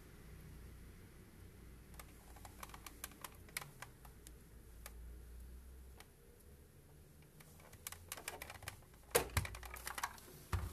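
Scattered light clicks and taps from hands placing and adjusting folded fabric patchwork wedges on a pressing surface, with louder knocks about nine seconds in as the steam iron is handled and lifted.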